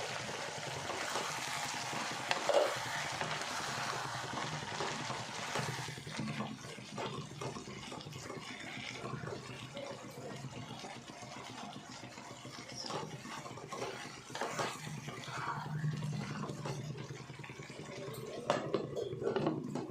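A pan of mixed vegetable bhaji (peas, potato, onion, tomato) sizzling while a spoon stirs and scrapes it. The hiss is strongest for the first six seconds, then gives way to scattered clicks and knocks of the spoon against the pan.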